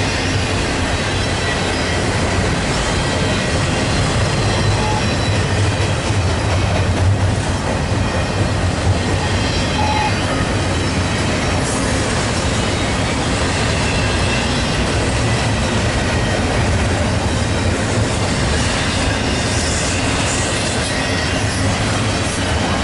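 Train rolling past, a steady loud rumble of wheels on rails with a faint high squeal from the wheels.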